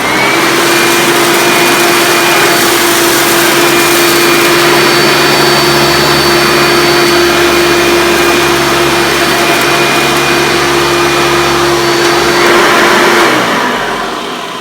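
A 1996 Hoover Preferred Elite upright vacuum cleaner's 7.2-amp direct-air motor switching on and whining up to speed. It then runs steadily with a high whine while making one pass forward and one back over carpet. About 13 seconds in it is switched off and winds down.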